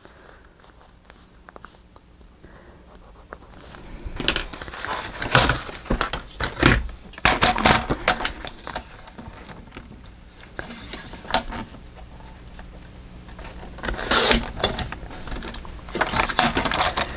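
Paper being handled: rustling and crinkling with light taps and scrapes, quiet at first and then busier from about four seconds in.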